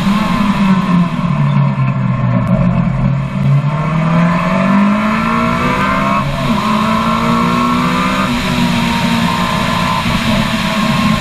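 Ariel Atom 3 supercharged Honda four-cylinder engine at full throttle on track, heard from on board: the revs climb for about five seconds, the note breaks briefly about six seconds in, and the revs drop about eight seconds in.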